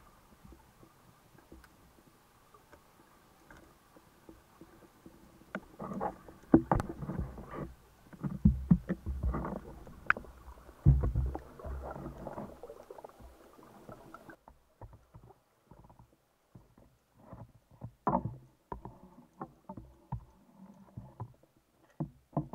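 Underwater sound through a camera's waterproof housing as a spearfisher handles a speared fish and speargun. It is faint at first, then from about six seconds in there is a run of irregular bubbling, rumbling and knocks, followed by scattered clicks and knocks.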